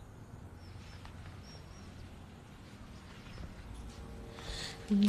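Quiet background noise with a low hum and a few faint, short high chirps, swelling into a soft hiss near the end.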